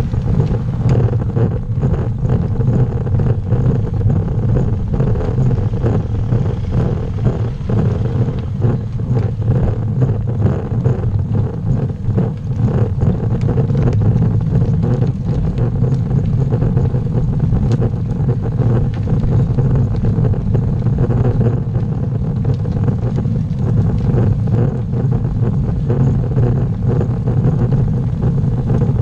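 Steady low rumbling noise of riding a road bike uphill: road and wind noise picked up by a camera mounted on the bicycle.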